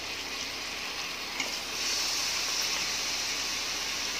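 Oil and onions sizzling in an aluminium pressure cooker pot as raw chicken pieces go in; the sizzle steps up and grows louder about two seconds in.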